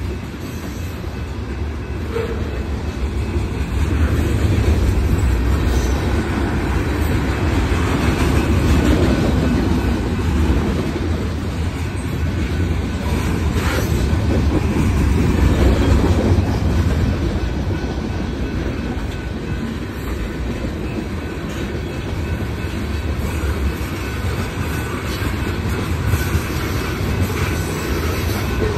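Freight cars of a long train rolling past at close range: a steady rumble and clatter of steel wheels on the rails, swelling and easing a little as the cars go by.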